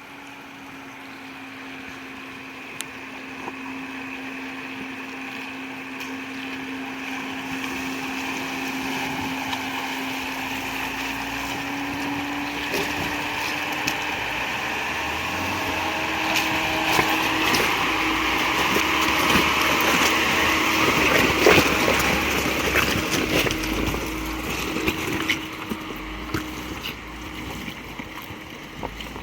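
Jeep Wrangler JKU's engine running steadily as it fords a river, with water splashing against the tyres and body. The splashing builds, is loudest about two-thirds of the way through with many sharp splashes and knocks, then eases off.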